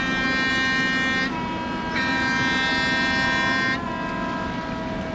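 Several boat horns sounding in long overlapping blasts. One loud, high horn blows twice, for about a second and a half each time, while lower-pitched horns hold on beneath it and past its end.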